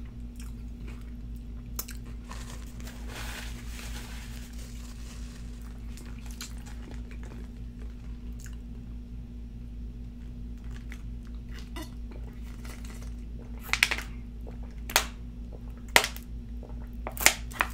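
Close-miked eating sounds: chewing of a sauce-dipped chicken nugget, then several loud, sharp mouth clicks in the last few seconds while drinking. A steady low hum runs underneath.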